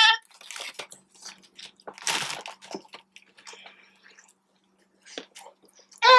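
Close-up chewing and biting of sauced boneless chicken wings: a string of short, wet mouth clicks, with one brief louder noise about two seconds in.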